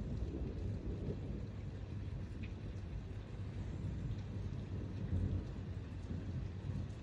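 A thunderstorm: heavy rain with a steady low rumble and no sharp thunderclap.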